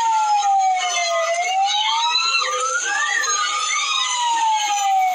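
A siren wailing slowly. Its pitch falls to a low about a second in, climbs to a peak about three seconds in, then falls again.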